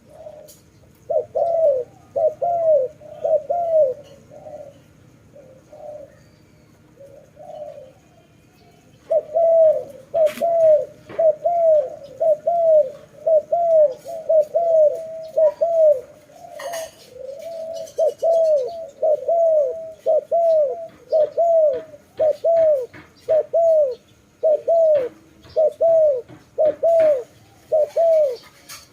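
A dove cooing, a repeated series of short, arched coos at about two a second. A short first run and a pause of several seconds are followed by a long steady run from about nine seconds in, with a few sharp clicks among the coos.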